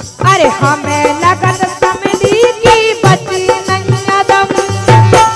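A woman singing a Bundeli wedding gaari folk song, accompanied by a regular drum beat and rattling percussion.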